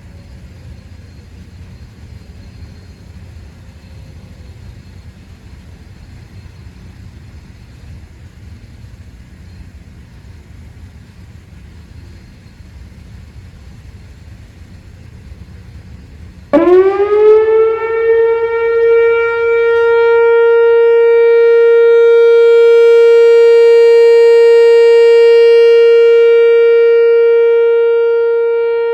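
Low background rumble, then a Whelen WPS-4004 electronic outdoor warning siren switches on about 16 seconds in. Its pitch sweeps up within a second to a loud, steady, low-pitched alert tone, which it holds and which eases slightly in level near the end. This is the steady alert cycle of a routine siren test.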